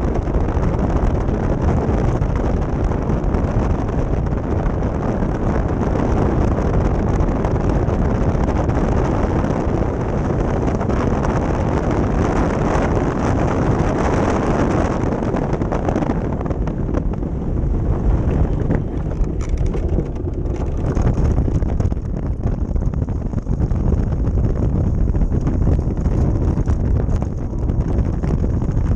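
Steady wind buffeting the microphone of a moving ice boat, with the hiss and rattle of its runners sliding over the ice. The high hiss drops away about halfway through, leaving scattered light clicks.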